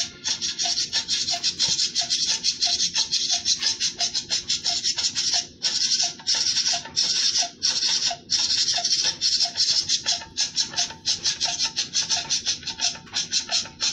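Music with a fast, steady beat led by bright, crisp percussion strokes, the low end thin.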